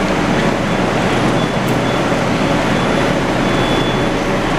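Steady, even rumble and hiss of a metro station platform as an 81-760 'Oka' subway train stands with its doors open.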